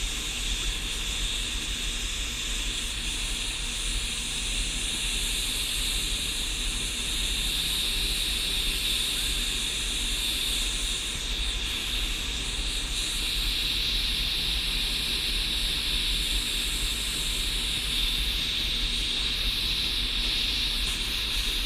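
Gas blowtorch flame hissing steadily as it heats a diesel heater burner red hot to burn it clean.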